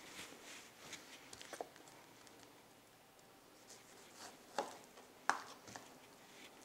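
Kitchen knife cutting the core off pineapple quarters on a cutting board: faint slicing with soft clicks and taps of the blade on the board, and two sharper knocks a little past the middle.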